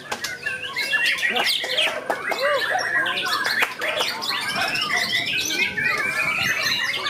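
Several white-rumped shamas singing at once in a songbird contest: a dense tangle of overlapping loud whistles, rapid trills and harsh chattering notes.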